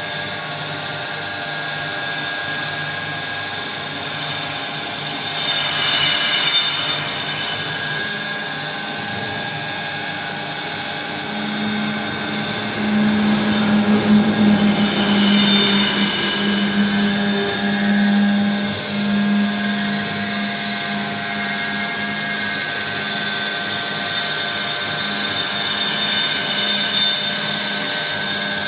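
Lathe running during a turning job: a steady machine hum with a constant whine, swelling louder twice, about six seconds in and again around the middle, when a deeper hum comes in for several seconds.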